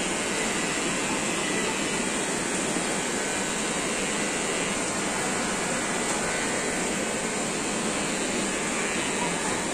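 Kemei cordless electric hair clipper running steadily close by, a continuous motor buzz as it cuts hair.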